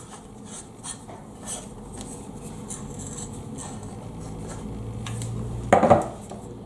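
Light handling noise of microphone parts being screwed together: small scrapes, ticks and rubbing of threaded metal and plastic, with one brief louder sound near the end.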